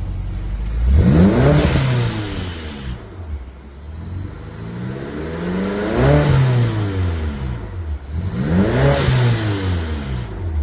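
BMW E70 X5M's twin-turbo V8 revving up and falling back three times, each swell about two seconds long, over a steady low engine hum.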